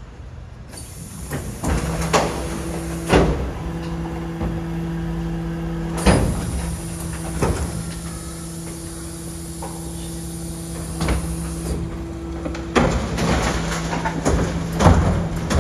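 Hydraulics of a BYD electric rear-loader garbage truck humming steadily as the compactor and bin lifter work. Several sharp knocks of the steel wheeled bins and lifter, then busier clatter near the end as a bin is tipped into the hopper.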